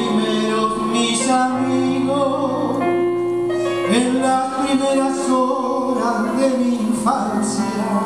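Wind band playing a slow passage of held chords, the notes changing every second or two.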